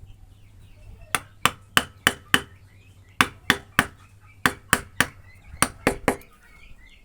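Hammer blows striking wood: sharp knocks about three a second, in short runs of three to five with brief pauses between runs.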